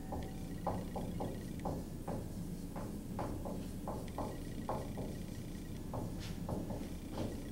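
Dry-erase marker writing on a whiteboard: an uneven run of short strokes as letters are written, over a steady low hum.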